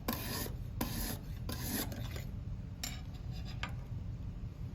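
Knife edge stroked across an oiled Lansky sharpening hone: several quick gritty scrapes in the first two seconds, then a couple of brief single scrapes.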